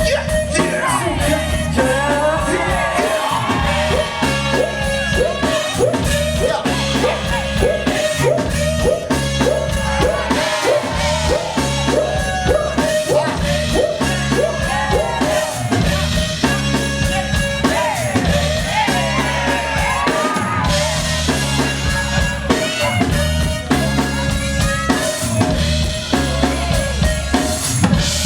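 Loud dance battle music: a steady drum-kit beat over deep bass, with melodic lines on top.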